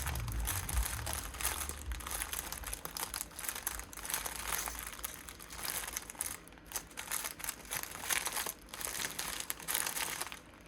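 Small plastic bags of diamond-painting drills crinkling and rustling as they are handled and sorted through.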